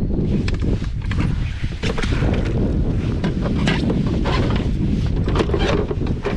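Strong wind buffeting the microphone, a heavy steady rumble, with irregular short splashes of wind-driven water against the kayak.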